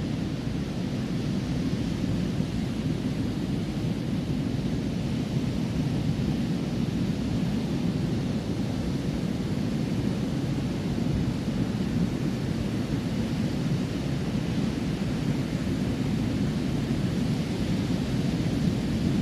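Ocean surf on a beach: a steady, low rushing of breaking waves with no let-up.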